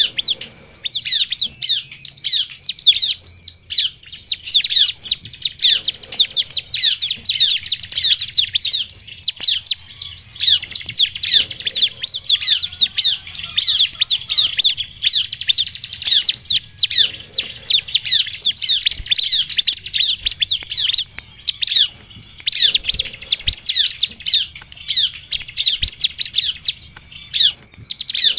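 Bar-winged prinia (ciblek) singing hard and almost without a break: fast runs of high, sharp, curving chirps, several a second, broken by short pauses every few seconds.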